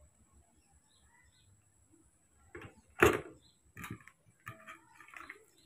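Handled kitchenware knocking and clinking: a few sharp knocks, the loudest about three seconds in, then smaller clicks and rustles, as the blender jug, the small metal strainer and the bowl of carrot juice are moved about.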